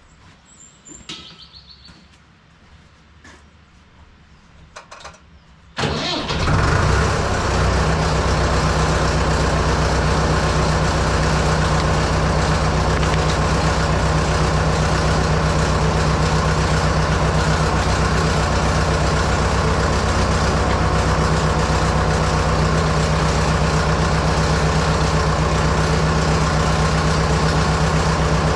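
Fordson Major tractor engine starting about six seconds in, then running steadily at idle. Before it, a few light clicks and knocks.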